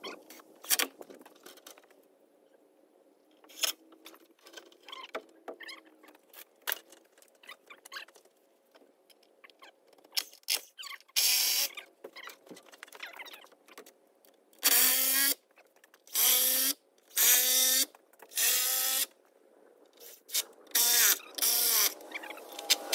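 Power drill running in repeated short bursts of about half a second to a second, driving into the deck's wooden framing, after scattered knocks and clicks of handling.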